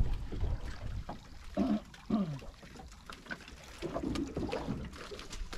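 Wind rumbling on the microphone and water moving around a small open fishing boat at sea, with scattered knocks and a short vocal sound about a second and a half in.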